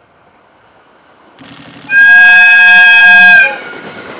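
Aoimori Railway 701 series electric train sounding its horn in one loud, steady blast about a second and a half long as it approaches. The train's running noise rises just before the horn, and the rumble of the passing train continues after it.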